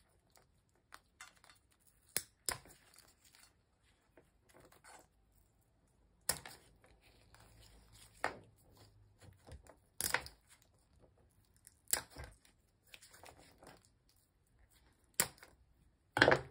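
Kitchen shears snipping through crab shell and legs: a sharp crunching snip every second or two, about eight in all, with a crackle of breaking shell after each.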